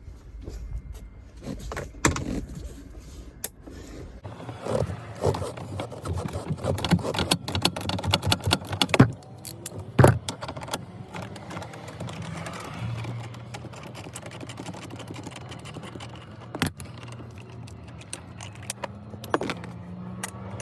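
Metal hand tools and bolt hardware clinking and rattling while a seat belt anchor bolt is taken out, with a run of quick clicks and a few sharp knocks in the first half, then quieter handling.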